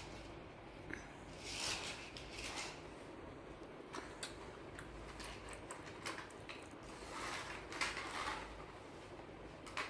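Crisp samosa pastry crunching as it is bitten and chewed, in short irregular crackly bursts.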